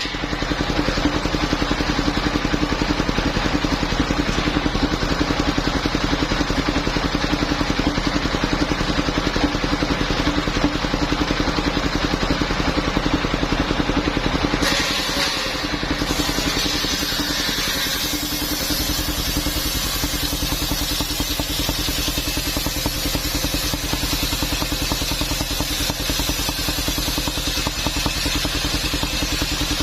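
Engine of a mobile circular sawmill running steadily, with a constant hum and even rapid firing. About halfway through the sound changes and drops slightly in level.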